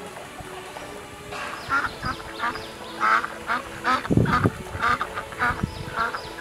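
Domestic ducks quacking in a quick run of short calls, starting about a second and a half in, with one louder, deeper call about four seconds in.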